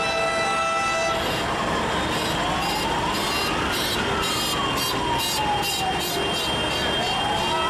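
A vehicle siren wailing, rising slowly in pitch, falling over about three seconds and starting to rise again, over the steady noise of slow car traffic. Several held car horns sound together in the first second.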